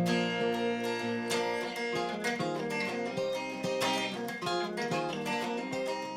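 Acoustic guitar playing a strummed and picked song introduction before the vocals come in.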